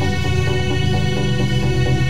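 Background music: a steady electronic track with sustained tones and a pulsing bass line.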